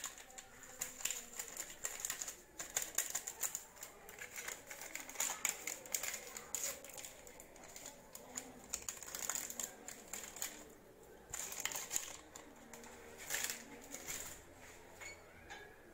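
Baking powder sachets crinkling and being torn open and tapped over a tub of batter: an irregular run of rustles and small clicks.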